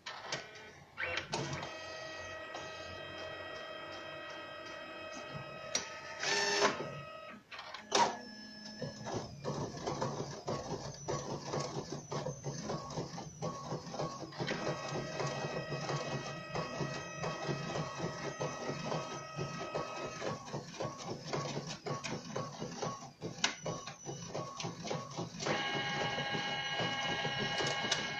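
A printer running through a print job: its motors whine at several steady pitches over rapid clicking from the paper feed and print mechanism. There are louder clacks about six and a half and eight seconds in, a lower hum after that, and the whine changes pitch near the end.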